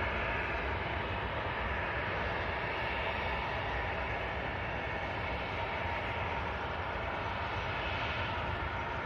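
Jet engines of a Boeing 737 airliner running at takeoff power as it begins its takeoff roll: a steady whine over a deep rumble.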